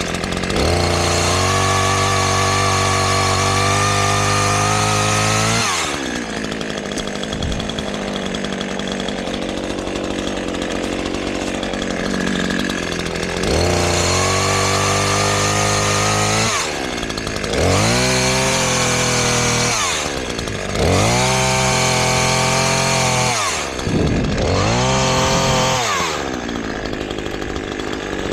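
Chainsaw cutting sassafras windfall wood. It runs at full throttle for about five seconds, drops to idle, then revs up again for a longer cut and three shorter ones in the second half, falling back to idle between each.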